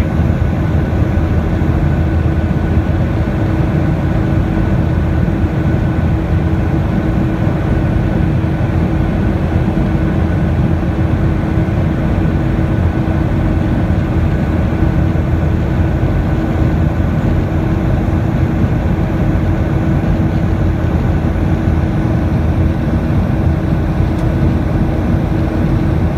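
Steady cabin noise of a Boeing 737-800 in flight: its CFM56-7B turbofans and the airflow make a loud, even low rumble with a constant hum on top.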